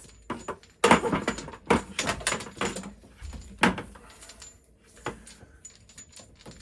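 Hose and fittings being handled and knocked against a bucket: a cluster of knocks and scrapes about a second in, one sharp knock near the middle, then fainter rustling.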